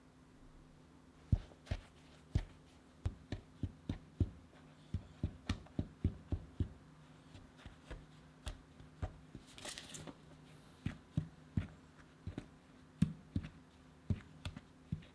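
Silicone spatula stirring dry flour in a glass mixing bowl: irregular clicks and taps of the spatula against the glass, a few a second in stretches, with one brief swishing scrape near the middle.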